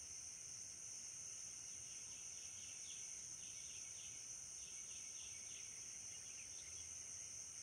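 Steady high-pitched drone of insects in the field and trees. About two and a half seconds in, a bird starts a quick run of short falling chirps that goes on for about four seconds.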